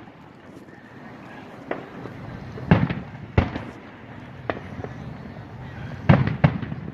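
Aerial fireworks bursting: a string of about six sharp booms at uneven intervals, the loudest about three seconds in and a pair just after six seconds, each dying away quickly.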